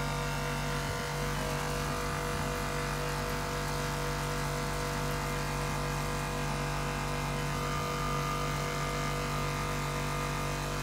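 A machine running steadily, an engine-like hum with several fixed tones that holds at one level and pitch throughout.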